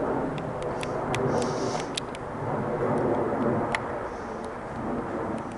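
Airbus A321 airliner passing overhead on descent: a steady broad rumble from its jet engines that swells and eases slightly, with a scattering of sharp clicks.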